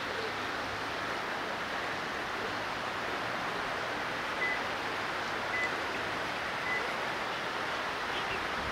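Steady rushing of flowing river water, with three faint, short high peeps about a second apart in the middle.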